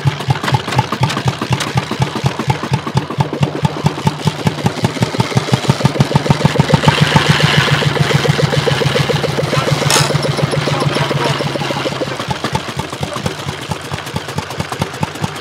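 Single-cylinder hot-bulb two-stroke engine of a 1921 Lanz Bulldog tractor running with a slow, even beat of separate knocks. It picks up speed and gets louder around the middle, then settles back to a slower beat. There is a single sharp click about ten seconds in.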